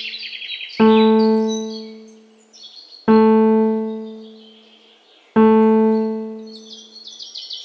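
Background music: a single low piano-like keyboard note struck three times at the same pitch, about every two and a quarter seconds, each ringing and dying away. Small birds chirp and trill over it at the start and near the end.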